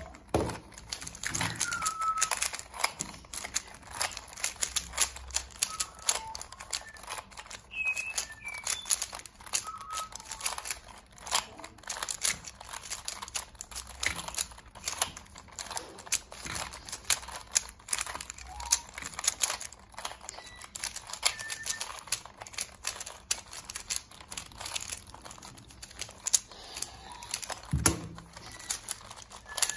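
Two 3x3 puzzle cubes being turned rapidly by hand: a dense, uneven run of plastic clicks and clacks as the layers snap round. A single thump near the end.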